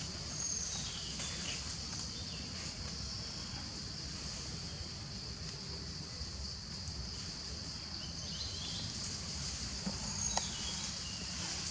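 Steady high-pitched insect chorus with a low rumble underneath, and a few faint short calls near the start and again near the end.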